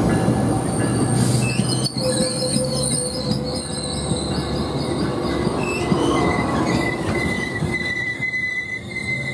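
Metrolink bilevel passenger cars rolling slowly past with their wheels squealing: a steady high squeal over the low rumble of the cars, with shorter, warbling squeals higher still in the first few seconds.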